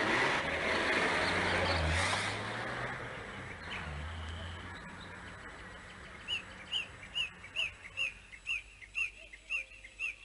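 A car drives past close by, its engine and tyres loud for the first two seconds, then fading as it drives off. From about six seconds in, a bird calls a short chirp over and over, about twice a second.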